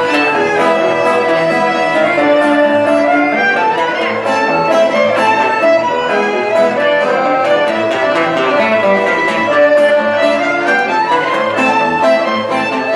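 A band playing dance music: sustained melody notes over a steady, regular percussion beat.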